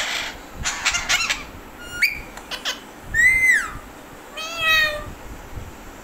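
Alexandrine parakeets calling: a few short harsh squawks, then two loud drawn-out, meow-like calls, the first rising and then falling about three seconds in, the second about a second later.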